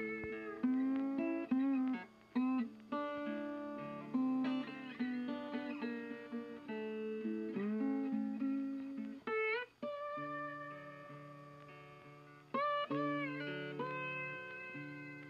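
Background music: a plucked guitar playing a slow melody over held bass notes, with a few notes sliding upward about nine and twelve seconds in.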